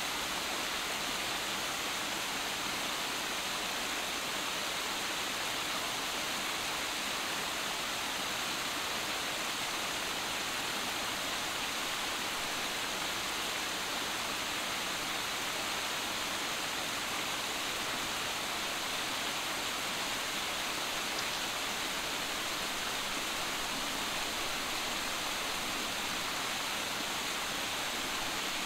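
Steady, even rushing of running water, with no separate sounds standing out.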